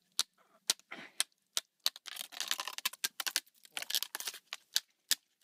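A stick jabbing into ice and crusted snow, making a run of irregular sharp cracks and crunches that come thickest in the middle.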